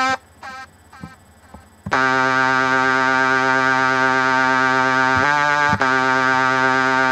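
Thor Polysonic Synthesizer in Reason 5 playing a lead patch called 'Gangsta Lead', driven from the computer keyboard: a few short notes, then from about two seconds in one long held low note with a buzzy tone, briefly switching to another note about five seconds in before returning.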